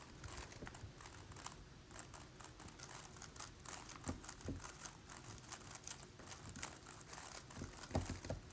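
Plastic twisty puzzles being turned: a steady stream of small irregular clicks and clatter from the layers.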